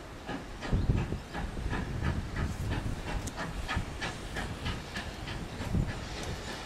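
GWR 0-6-0 pannier tank steam locomotive approaching under steam, its exhaust chuffing in a steady rhythm of about four beats a second.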